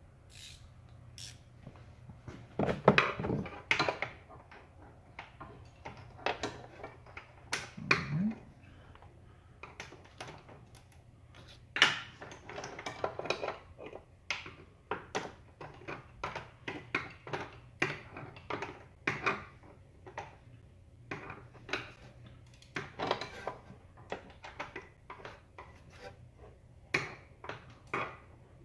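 Hand tools clicking and clinking against metal in irregular bursts while the rear suspension bolts are snugged up, not yet torqued, with busier stretches about three, twelve and twenty-three seconds in.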